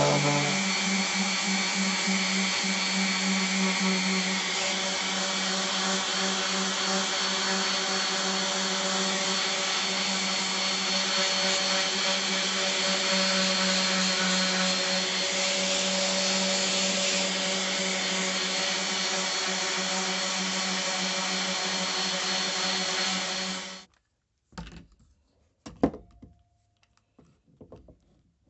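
Unipro random orbital sander running steadily as it sands a block of wood and epoxy resin. It stops suddenly a few seconds before the end, leaving a few faint knocks.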